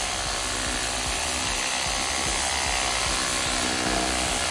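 WORKPRO 5-inch, 2.5 amp random orbit sander running steadily on its lowest speed, its pad sanding a wooden board: an even motor hum and hiss.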